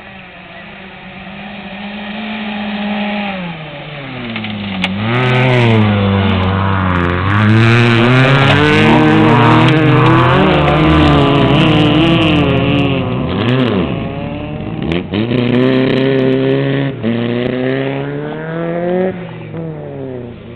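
Rally car engine revving hard as it approaches on a dirt stage, the pitch climbing and dropping back at several gear changes. It is loudest as it passes close by, with tyre noise on the loose dirt, then fades away near the end.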